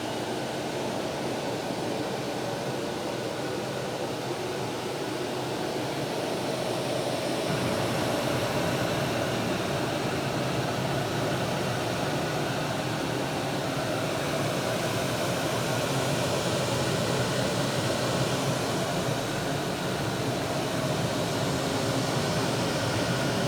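Boat's air conditioning blowing steadily, a constant rush of air with a low hum beneath, getting a little louder about seven seconds in.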